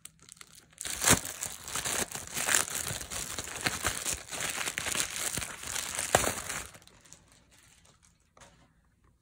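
Clear plastic shrink-wrap being peeled off a box and crumpled in the hands: dense crinkling that starts about a second in and stops a couple of seconds before the end.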